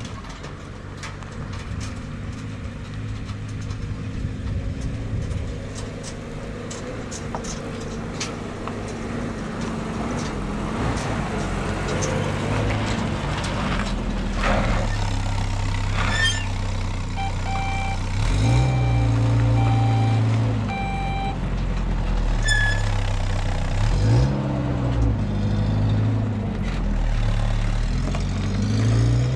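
A motor vehicle's engine running, its pitch rising and falling several times in the second half as it speeds up and slows. A run of short electronic beeps sounds about halfway through.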